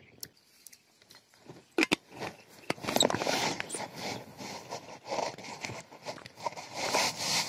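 Two sharp clicks a little under two seconds in, then close rustling and scuffing of a person moving about on foot and handling gear.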